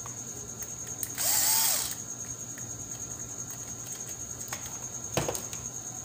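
Cordless hand drill running in one short burst of under a second, its motor pitch rising and then falling. A couple of sharp clicks follow a few seconds later.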